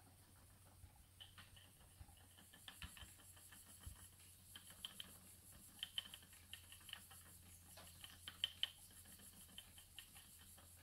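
Ashford Traditional spinning wheel turning while raw wool is drafted by hand: faint, irregular light clicks and ticks over a steady low hum.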